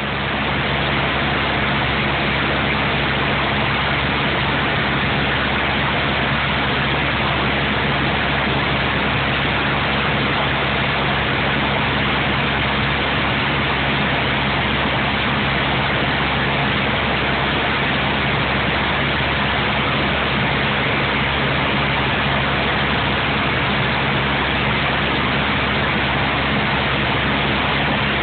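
Steady drone of a light aircraft's engine and propeller heard inside the cockpit on a night landing approach, a loud even rush with a low hum under it that does not change.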